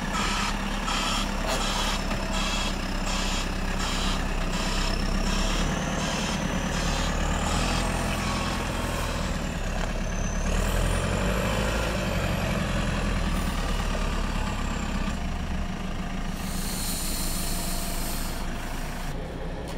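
Backhoe loader's diesel engine running as it manoeuvres off the low-loader's ramp, with its reversing alarm beeping about twice a second for the first several seconds. A short burst of air hiss comes near the end.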